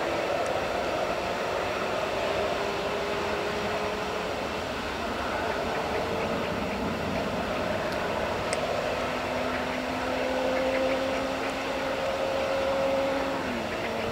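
Airbus A321 airliner's twin jet engines running at idle thrust as it taxis and lines up on the runway: a steady engine noise with faint whining tones that slowly rise in pitch, a lower one dropping away near the end.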